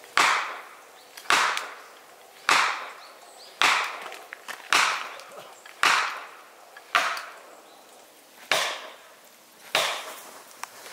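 Wood being chopped with a hand tool, probably limbing cedar: nine sharp blows at a little over one a second, each a crack with a short splintering tail, the last few slightly further apart.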